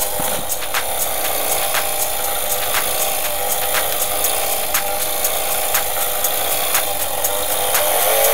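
ABC-Mix electric hand mixer running steadily at speed with its dough hook kneading a stiff dough, the motor giving a constant whine, with short sharp clicks every second or so.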